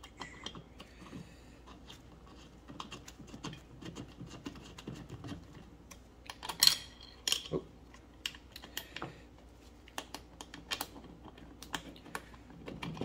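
Small metal clicks and ticks of an Allen key turning bolts by hand in a steel airbag mounting bracket as the bolts are threaded in, with two louder metal clinks near the middle.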